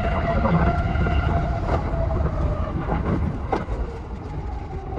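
E233 series electric train running on the rails, heard from the cab: a steady rumble with a faint steady whine and a few sharp clicks over the track. It grows quieter near the end as the train runs into a station.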